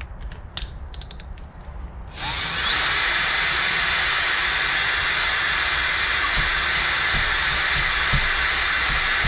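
A few light handling clicks, then about two seconds in an electric drill spins up: its motor whine rises quickly and then holds steady at full speed. It is spinning a brake caliper slide pin clamped in its chuck, to clean the pin up.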